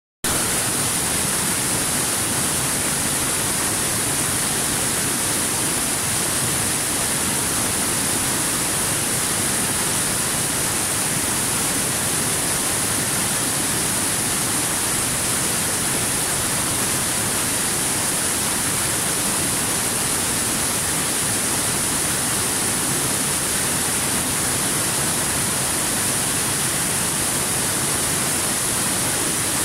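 Small waterfall cascading over rocks into a pool: a steady, unchanging rush of falling water with a strong hiss.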